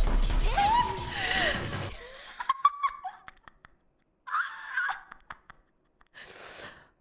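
A loud mix with a deep rumble and gliding cries for about two seconds, then a few short gasps and breaths separated by pauses.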